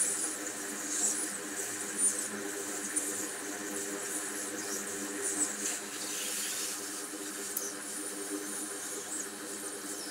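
Steady low hum with a high, airy hiss, from a fan or blower motor running on an electronics soldering bench.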